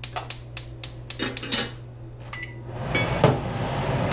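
Gas cooktop's spark igniter clicking rapidly, about five clicks a second, as the burner knob is turned. About three seconds in the burner lights, with a sharp knock and a steady rush of gas flame. A steady low hum runs underneath.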